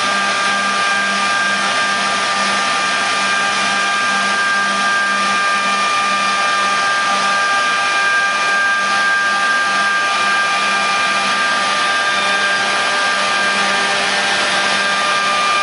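Griggio GB 5-8RA edge banding machine running: a loud, steady whir of its motors with several steady whining tones over it.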